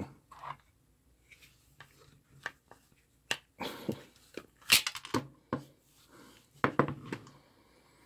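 A hand crimping tool and a wire fitted with a red insulated spade connector being handled and squeezed: scattered sharp clicks and short rustles, with the loudest click about halfway through.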